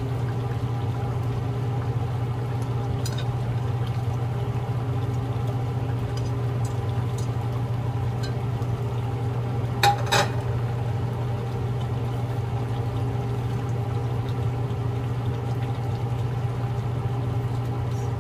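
Chicken curry simmering in a frying pan, a soft bubbling over a steady low hum. Two sharp knocks come close together about ten seconds in.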